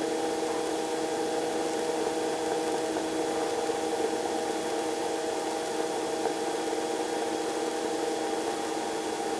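Robinson R22 helicopter in flight, heard from the cabin: a steady drone of engine, rotors and drivetrain, with an even hum of several tones over a constant hiss.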